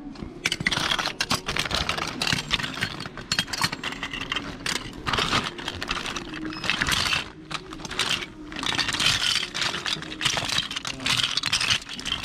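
Hands rummaging through a pile of small plastic action figures and accessories, the toys knocking together in a dense, continuous clatter of clicks.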